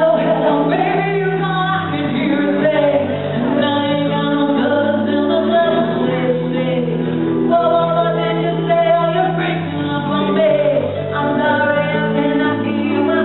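A woman singing a song into a microphone over a keyboard backing of long held synthesizer chords and a bass line that changes every second or two.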